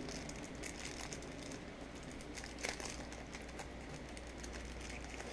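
Faint handling noise: light rustling and small scattered clicks as a braided charging cable and its cable tie are handled, with one slightly louder click near the middle.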